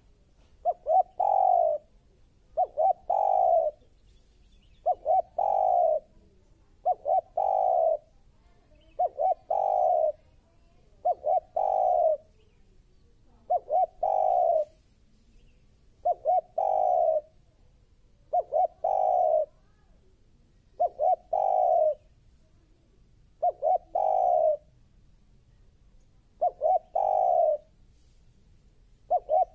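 Spotted dove singing its coo song over and over, about one phrase every two seconds: two or three quick short notes, then a longer drawn-out coo.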